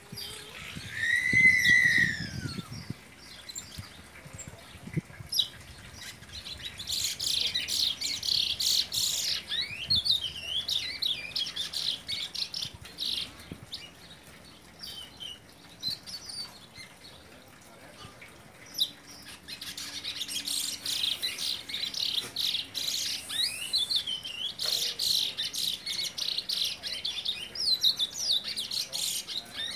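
Curió (chestnut-bellied seed finch) singing from its cage: two long bouts of rapid high twittering and whistled, gliding phrases, one starting a few seconds in and one past the middle. A single loud arching whistle comes about a second in.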